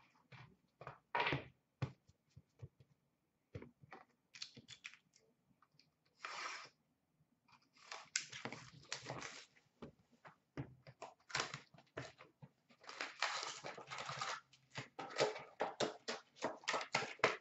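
Cardboard trading-card box and foil hockey card packs being handled. There are scattered taps and clicks at first, then crinkling and rustling of the pack wrappers, growing denser and busier from about halfway.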